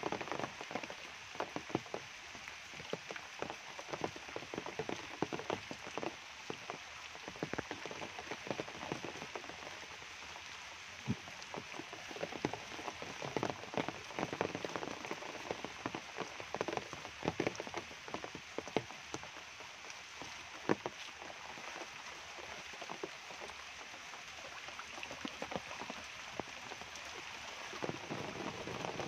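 Steady tropical rain falling on leaves and a waterlogged dirt path, with many sharp, close drop impacts standing out.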